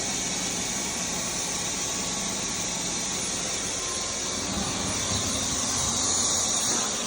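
Vacuum cleaner running steadily: a high hiss over a low hum.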